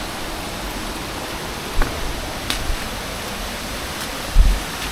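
Steady rush of flowing creek water and cascades, with two dull thumps about two seconds apart.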